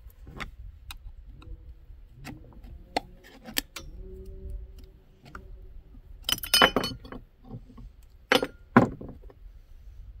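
Small metal clicks and clinks of a screwdriver and screws as the exhaust deflector is unscrewed from a Poulan Pro chainsaw. A louder clattering of parts comes about six seconds in, and two sharp clacks follow near the end as the deflector cover comes off.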